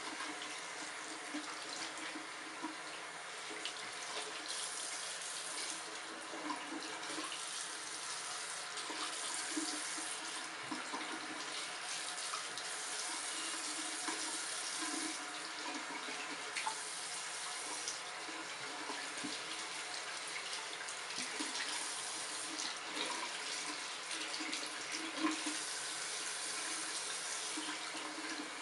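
Bathroom sink faucet running into the basin, the stream splashing unevenly as hands work water through a kitten's wet fur, the hiss swelling and easing as the hands move in and out of the flow.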